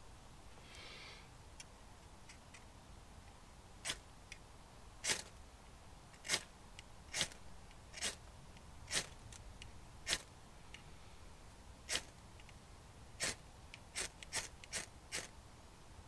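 Ferro rod scraped with a striker to throw sparks into a tinder bundle to light a fire. About a dozen short, sharp scrapes start about four seconds in, roughly one a second, coming quicker near the end.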